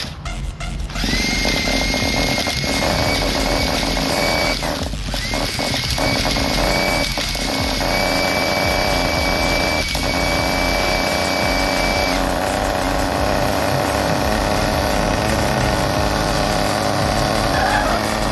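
Cordless drill whining as it cranks a nitro RC truck's small glow engine through a drill starter rod, in a few bursts with short breaks. About twelve seconds in the drill stops and the nitro engine keeps running on its own, having started.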